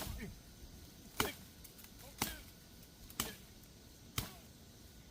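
Five sharp chopping strikes into a woody Oriental bittersweet vine, evenly spaced about a second apart.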